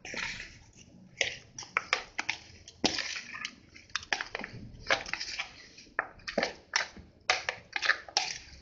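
A spoon scraping and tapping in a plastic bowl as raw mutton pieces are stirred through ginger-garlic paste and ground spices: a run of short, irregular scrapes, one or two a second.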